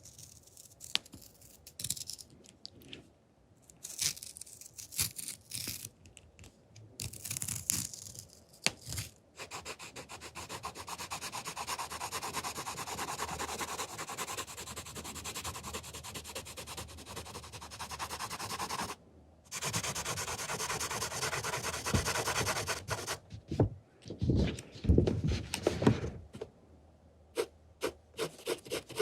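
Close-miked ASMR trigger sounds: a series of rubbing and scratching noises. A long continuous stretch of rubbing fills the middle, and a few louder knocks or taps come near the end.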